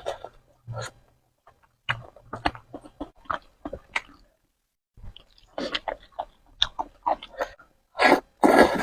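A person eating Korean spicy instant noodles: wet chewing and mouth clicks in short clusters, with a louder, longer burst near the end.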